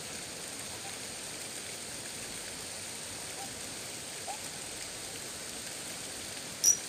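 Steady hiss of light rain on the river and reeds. Near the end a sudden, loud, high-pitched clicking whir cuts in: the fishing reel's drag giving line as a fish strikes.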